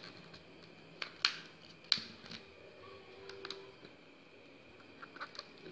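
Several sharp plastic clicks, spread unevenly over a few seconds, as fingernails pry at the edge of a Xiaomi Redmi 5A phone's stiff plastic back casing to open it.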